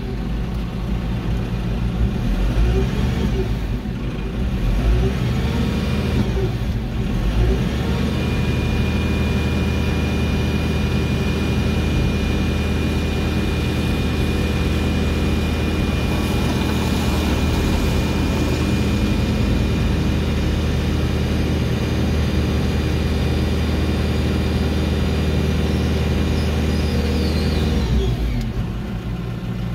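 Telehandler's diesel engine running at raised revs while its boom lifts a window head up to the gable wall. The revs rise and fall at first, then hold steady with a thin high whine over them from about eight seconds in, and drop back near the end.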